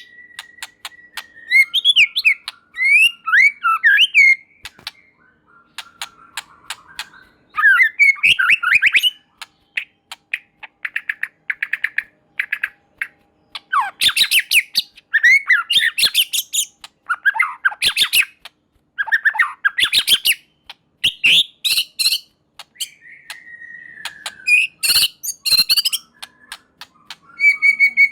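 White-rumped shama (murai batu) singing a varied song in bursts: gliding whistles and fast trilled phrases, mixed with runs of dry, rapid clicking rattles, with short pauses between phrases.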